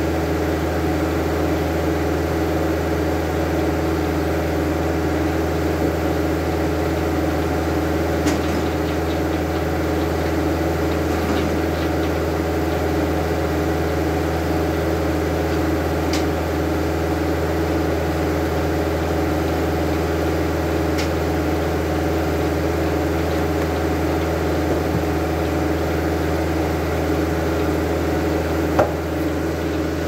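Engine running steadily at an even speed, a constant drone with a few faint clicks.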